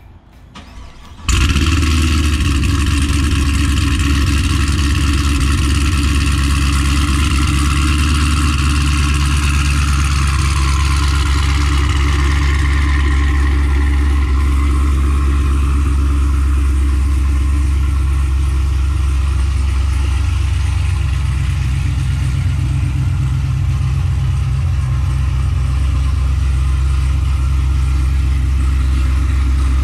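Chevrolet Camaro SS V8 remote-started on a semi-cold start: the engine catches abruptly about a second in and settles straight into a loud, steady idle, its higher tones easing a little partway through.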